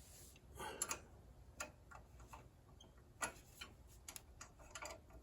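Faint, irregular metal clicks and taps of a wrench being tried on a muffler bolt to check its size, about six in all.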